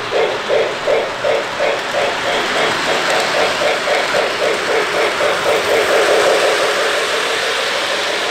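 Lionel Budweiser Clydesdales O gauge steam train's sound system chuffing from its speaker. The chuffs start at about three a second, quicken as the train speeds up, and run together into a steady sound about six seconds in, over the running noise of the train on the track.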